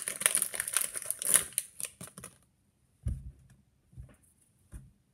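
Plastic blind-bag wrapper crinkling and rustling in the hands, stopping about halfway through, followed by a few soft knocks.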